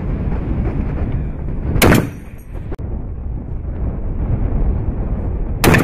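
Barrett M82/M107 .50-calibre semi-automatic rifle firing two shots about four seconds apart, each a sharp blast with a short ringing tail, over a steady low rush of background noise.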